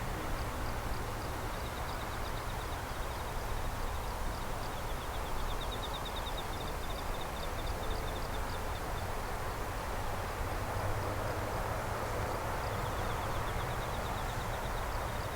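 Night outdoor ambience: a steady low rumble and hiss, with faint rhythmic high-pitched chirping of night insects in repeated trains.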